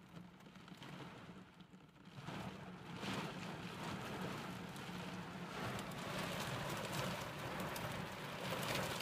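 Heavy rain falling on a car's roof and windshield, heard from inside the car, as a steady patter that grows louder about two seconds in, with a low steady hum underneath.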